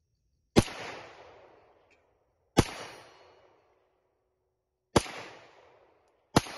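Four pistol shots from a French Modèle 1935A in 7.65 mm French Long, fired about two seconds apart, each sharp report trailing off over about a second.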